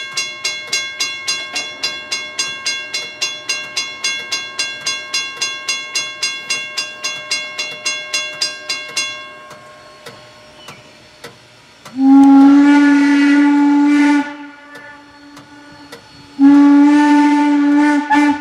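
A steam locomotive's bell rings with quick, even strikes, about three a second, and stops about nine seconds in. After a pause, Norfolk & Western 475's deep 12-inch hooter steam whistle sounds two long blasts, each about two seconds, the standard signal for releasing brakes and proceeding.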